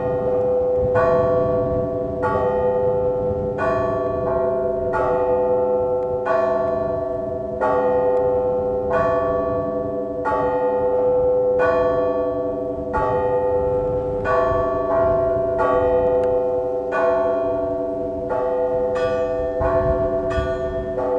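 Russian church bells rung in a matins peal: a new strike about every second and a quarter, each ringing on into the next so that several bell tones hang together throughout.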